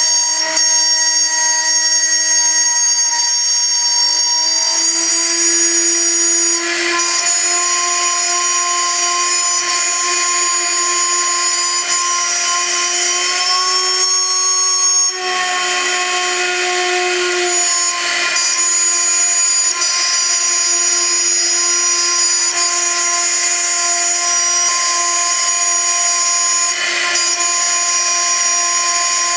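High-frequency spindle of a CNC gantry milling machine whining steadily as an end mill cuts aluminium. Its pitch shifts slightly every few seconds as the load on the cutter changes.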